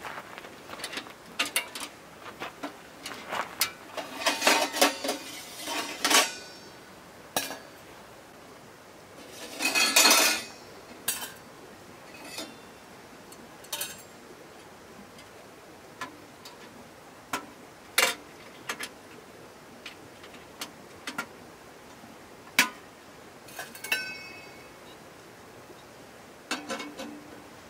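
Metal parts of an Urbanside Fire Hexagon wood stove being handled: scattered sharp metal clicks and clinks, with longer rattling clatters about four to six seconds in and around ten seconds, and a short ringing clink near the end.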